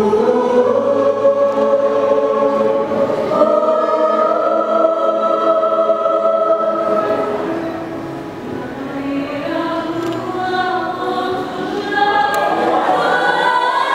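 School choir singing in harmony, holding long chords. The singing softens around the middle and swells again near the end.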